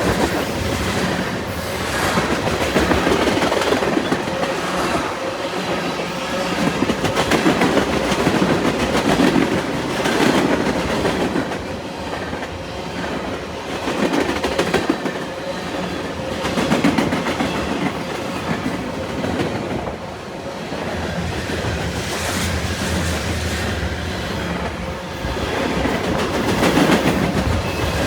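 A CN train's cars passing at speed, their wheels clattering on the rails in a continuous loud rush that swells and eases every few seconds.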